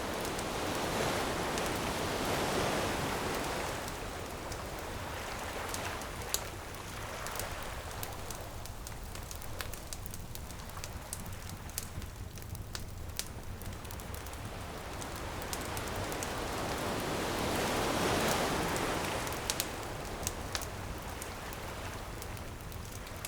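Ocean waves washing in on a beach, one swell early on and another about three-quarters through, with a wood bonfire crackling and popping throughout.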